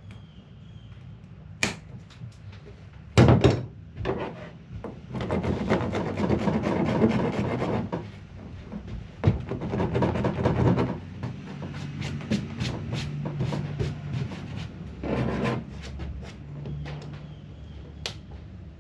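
Hand rasp scraping across hard plastic in two long spells of strokes, with a few sharp knocks and clunks of tool handling before and after.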